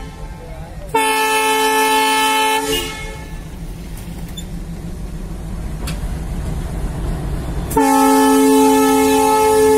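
WDG-3A diesel locomotive sounding its horn twice, a blast of under two seconds and then a longer one near the end that is still going, with the engine's low rumble growing louder between them as the locomotive approaches.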